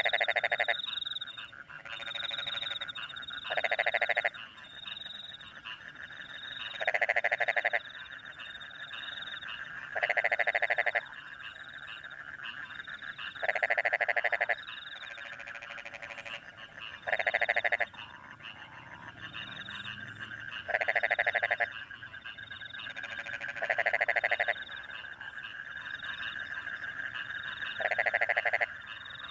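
Rice-field frogs croaking in a chorus, one loud pulsed call of about a second repeating roughly every three and a half seconds. Underneath runs a steady trilling of more frogs and crickets, with short high chirps repeating near the top.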